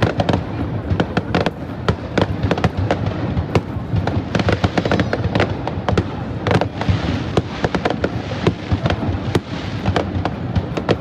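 Aerial fireworks bursting in a rapid, continuous run of sharp cracks and bangs over a steady low rumble.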